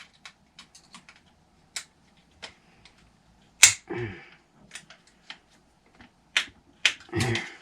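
Scattered light clicks and taps of a wrench and small metal parts against an RC truck's chassis as a screw on the engine mount is tightened from underneath, with one sharp, louder click about halfway through.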